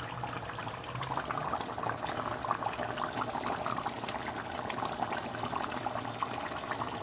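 Pot of water with basmati rice boiling, a steady dense bubbling and popping.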